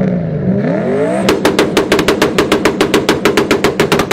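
Turbocharged 1UZ-FE 4.0-litre V8 in a 1993 Toyota Supra revving up, then held on the rev limiter: a rapid, even string of loud exhaust cracks, about eight a second, that stops suddenly at the end.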